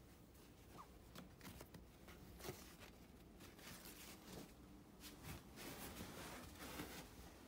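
Faint rustling with scattered light clicks and knocks from a packed fabric tote bag being handled and carried, over a low steady room hum.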